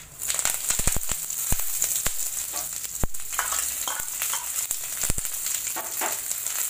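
Fresh curry leaves hitting hot oil in a kadai: a loud sizzle that bursts in at once and keeps going, with many sharp crackles and pops from the tempering of mustard seeds, dals and peanuts.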